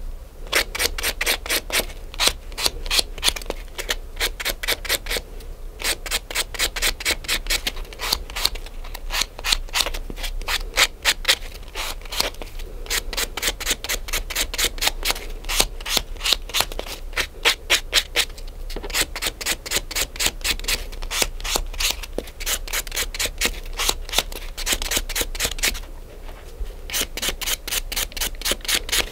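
Nail file rubbed quickly back and forth across a fingernail, about five short scraping strokes a second, in runs broken by brief pauses.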